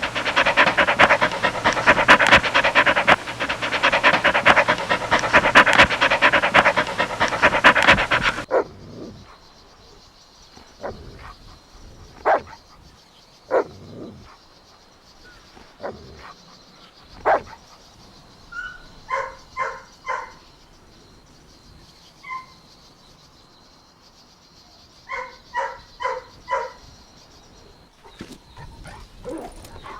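Puppies' dog sounds: a loud, dense, rough noise for the first eight seconds or so, then scattered short barks and two quick runs of high yips.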